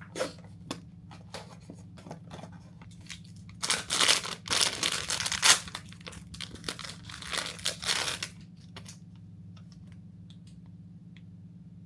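Blind-box toy packaging being torn open and crinkled by hand, with a few light handling clicks first and the tearing from about four to eight seconds in. A steady low hum runs underneath.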